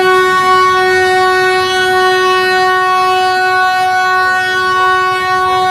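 Darjeeling Himalayan Railway toy train locomotive sounding one long, steady whistle on a single pitch, starting suddenly and held without a break.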